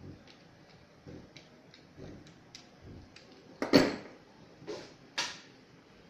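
Light clicks and taps, then three short scraping strokes a little more than halfway through, the first the loudest: a pastry cutting wheel running through rolled-out dough on a work surface, cutting strips.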